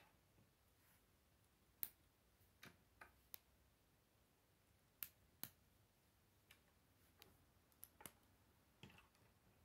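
K'nex plastic connectors and rods being snapped together by hand: about ten short, sharp plastic clicks at irregular intervals, with near silence between them.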